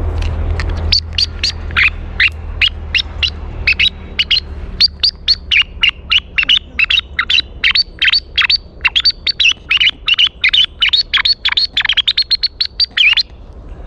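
A bird chirping in a fast, even run of short, high chirps, several a second. It starts about a second in and stops sharply near the end.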